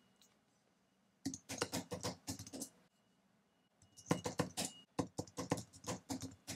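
Computer keyboard typing in two runs of quick keystrokes: a short run about a second in, then a longer run from about four seconds in.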